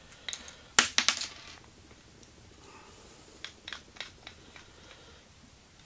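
Small metal machine screws clinking as they are handled and sorted: a cluster of sharp, ringing metallic clicks about a second in, then a few fainter ticks later.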